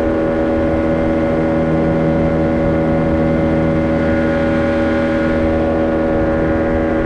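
Boat's outboard motor running at a steady speed underway, one constant pitch that neither rises nor falls.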